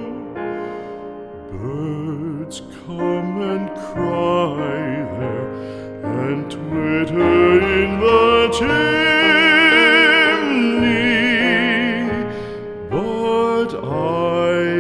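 Slow, tender classical-style music: a melody line with strong vibrato over sustained accompaniment, in the style of a vocal art song.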